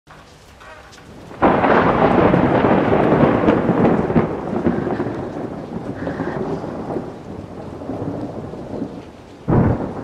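Rain falling steadily, then a sudden loud thunderclap about a second and a half in that rumbles on and slowly fades over several seconds. A second thunderclap breaks just before the end.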